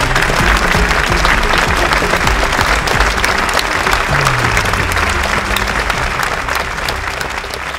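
Theatre audience applauding a curtain call, a dense steady clapping, with background music running underneath on low sustained notes.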